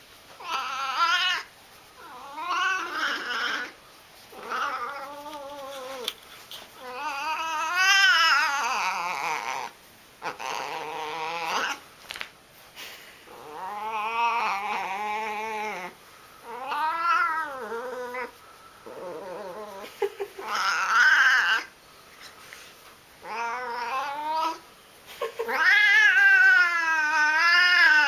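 A cat yowling (caterwauling) in about ten long, wavering calls with short gaps between them, loudest near the end.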